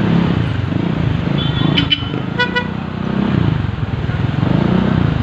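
Motorcycle engine running under the rider, its pitch rising and falling with the throttle, over street traffic. Short horn toots sound between about one and a half and two seconds in, with a shorter one about half a second later.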